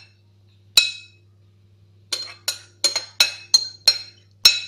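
A metal spoon clinking against glass dishes as strawberries are scooped from a glass bowl into glass dessert cups. There is one ringing clink about a second in, then a quick run of about seven clinks, roughly three a second.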